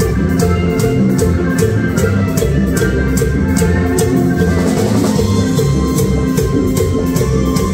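Live tropical charanga band playing a medley: electric bass, drum kit with cymbals, congas and keyboard, over a steady, quick beat.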